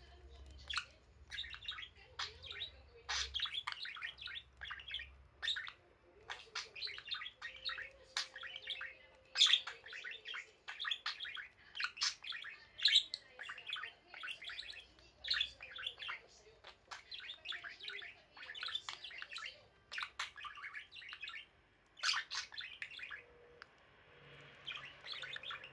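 Pet budgerigars chirping and chattering: many rapid, high, short chirps in bursts with brief pauses.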